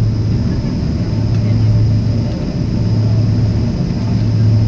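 Boeing 767 cabin noise heard from inside the cabin: a steady rumble of engines and airflow with a constant low hum.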